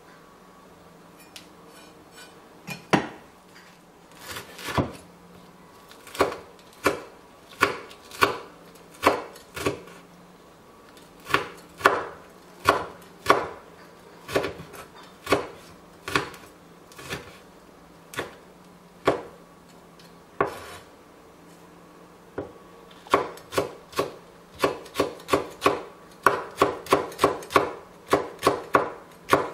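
Kitchen knife chopping chili peppers on a wooden cutting board: sharp knocks of the blade on the wood, few at first, then about one a second, and a quicker run of chops near the end.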